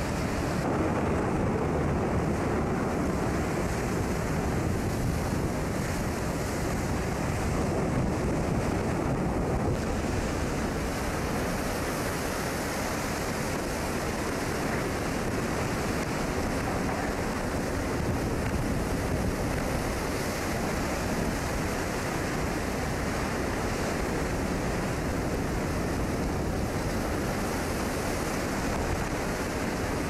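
Rough seas breaking over a bulk carrier's bulwark and washing across its deck, with wind on the microphone: a steady rush of water and wind.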